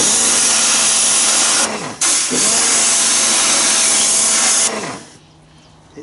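Pressure-washer gun with a flexible swivel nozzle spraying water into a wheel and around the brake caliper, in a steady hiss. There are two sprays: one of about two seconds, a brief break, then one of about two and a half seconds that stops about five seconds in. A faint steady hum under the spray sags each time the trigger is let go.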